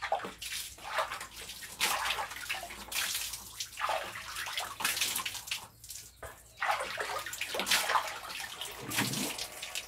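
Water splashing in a series of quick pours or splashes, about one a second, as a person washes with water in a small bathing room.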